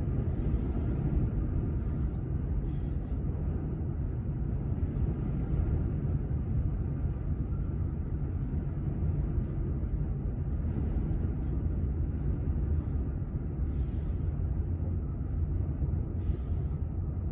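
Boeing 747's four jet engines at takeoff thrust, heard as a steady deep rumble that eases slightly as the airliner lifts off and climbs away.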